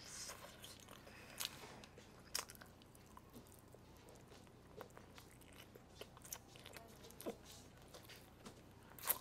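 Faint chewing and biting on a mouthful of sauced grilled chicken, with soft clicks scattered through and the sharpest one near the end.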